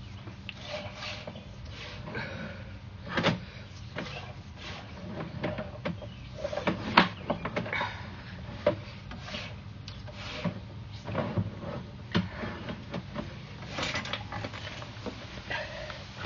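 Sewer inspection camera push cable and reel being handled: irregular knocks, clicks and rubbing, the loudest about three and seven seconds in, over a steady low hum.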